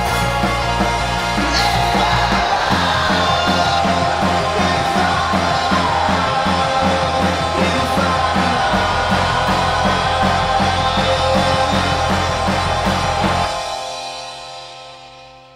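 Rock music soundtrack with guitar and a steady drum beat, fading out near the end.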